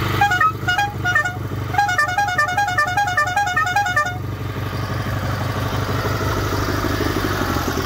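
Harbor Freight air horns fitted to a 1978 Sears GT/18 lawn tractor, blown in a few short toots, then a rapid string of about five toots a second for two seconds. Under the toots the tractor's engine runs steadily, and it carries on alone after the horns stop.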